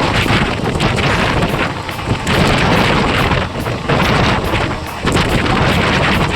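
Passenger train running at speed, heard from aboard an ICF coach: a heavy rumble with rattling and knocks from the wheels and coach, and wind buffeting the microphone.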